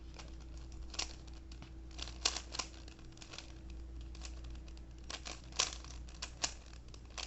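A 3x3 Rubik's cube being twisted by hand: irregular plastic clicks and rattles as its layers turn, some sharper than others.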